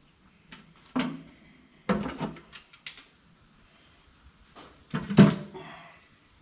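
Steel oil pan of a Chevrolet 454 big-block being pried loose and lifted off the upturned engine block to expose the crankshaft, with a few metallic clunks. The loudest clang, about five seconds in, is the pan being set down on the concrete floor.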